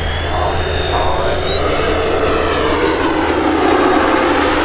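Electric ducted fans of a large-scale RC Airbus A350 model in flight: a steady rushing hiss with a high whine that rises in pitch in two steps, about a second and a half in and again near the three-second mark.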